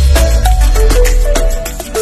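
Background music with a steady beat, a melody of short notes and heavy bass that drops away near the end.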